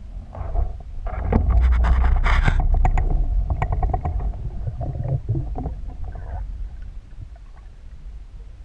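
Muffled underwater rumble picked up through a GoPro's waterproof housing, with a dense run of clicks and knocks from about one to three seconds in that tails off after about six seconds: water movement and handling knocks against the housing.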